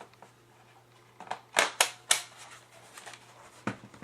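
Plastic clicks and knocks as a battery is pushed into an HP 2000 laptop's battery bay and its latches snap shut. There are three sharp clicks about a second and a half in, and one more near the end.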